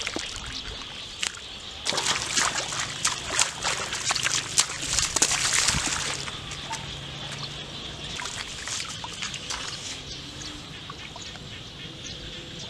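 Splashing and sloshing in shallow muddy floodwater as hands grab for fish, busiest for about four seconds starting two seconds in, then dying down to softer trickling and dribbling.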